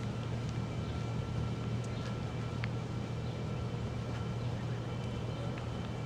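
Steady low mechanical hum, with faint thin high-pitched tones held steady above it.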